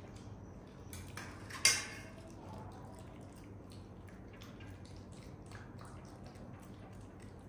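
Scattered faint clicks and ticks over a low steady hum, with one sharp, loud click or knock about a second and a half in.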